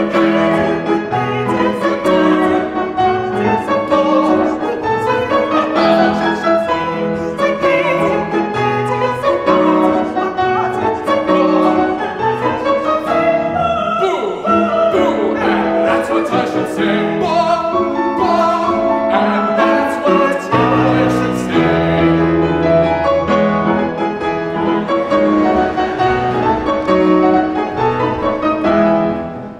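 A man and a woman singing a staged operatic duet with grand piano accompaniment. The music stops near the end.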